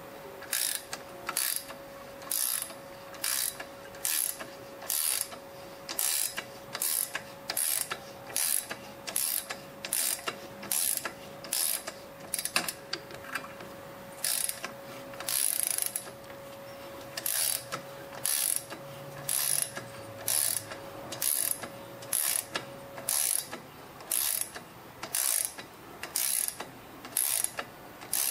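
Ratchet wrench clicking in short bursts, roughly one or two a second, as a cutting tap is turned by hand to thread a new spark-plug hole in a BMW motorcycle cylinder head.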